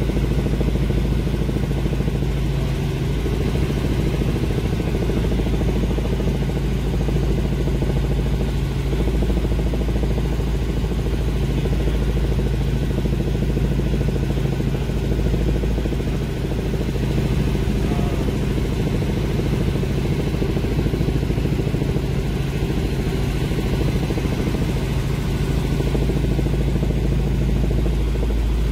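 Helicopter in flight heard from inside the cabin: a steady deep drone of engine and rotors.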